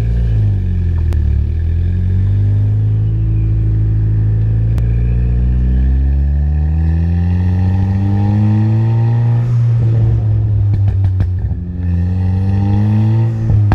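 Ford Fiesta ST's turbocharged four-cylinder accelerating hard through a catless downpipe and 3-inch MBRP catback with a Flowmaster muffler, the engine note climbing steadily for about nine seconds. On lift-off it drops and the exhaust gives a string of crackles and pops from the crackle-and-pop tune, then it climbs again and pops once more near the end.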